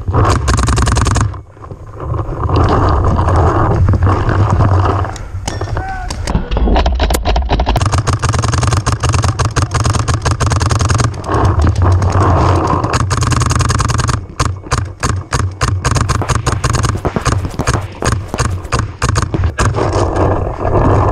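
Electronic paintball markers firing rapid strings of shots, with players shouting.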